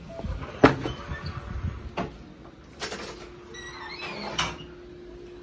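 Door with a push-button keypad lock being opened: a sharp latch click just over half a second in, then a couple more knocks as the door swings and shuts.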